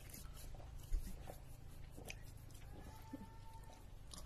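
Quiet room with a low steady hum, one soft thump about a second in and a few faint small clicks. A faint steady tone sounds briefly near three seconds.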